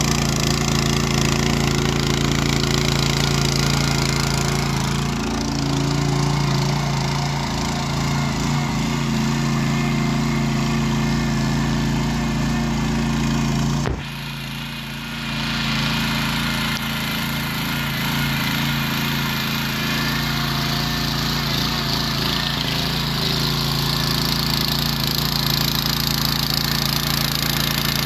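Petrol motor hoe with an 8.5 hp single-cylinder engine running steadily under load as its rotating tines churn garden soil. About halfway there is a sudden break and a brief dip in level, after which the engine runs on.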